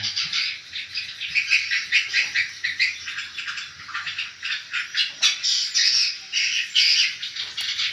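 A crowd of swiftlets giving rapid high chirps that overlap into a dense, unbroken twitter.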